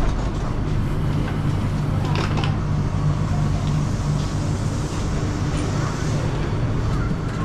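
Steady low hum of an airport shuttle train standing at its platform with doors open, with passengers' voices and movement over it.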